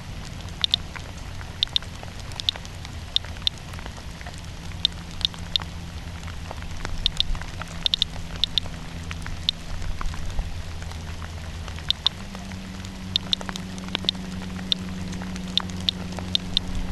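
Radiation Alert Inspector Geiger counter chirping at random intervals, one short high beep per detected count, about two a second and sometimes two in quick succession. The counts come from background radiation over rain-wet ground. A steady low rumble runs underneath.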